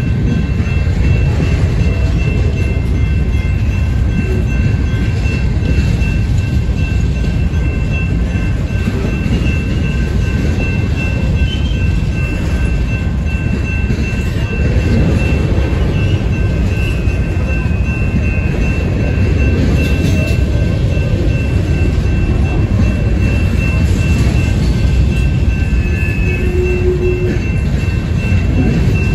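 Loaded covered hopper cars of a freight train rolling past close by: a steady rumble of steel wheels on rail, with a thin, steady high-pitched squeal of wheel flanges on the curve over it.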